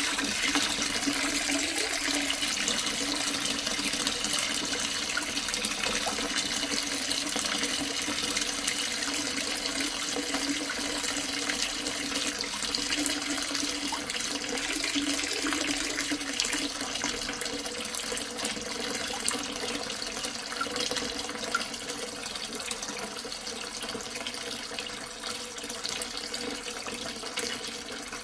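Water from a tap pouring into a half-full sink, splashing and gurgling into the standing water in a steady stream that grows a little quieter over the second half.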